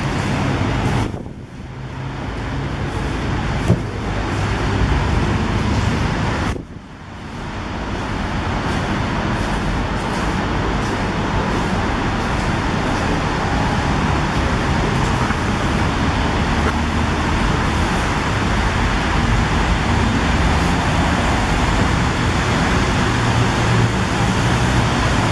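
Steady city road traffic: a continuous wash of passing vehicles. Twice in the first seven seconds it drops away suddenly and swells back.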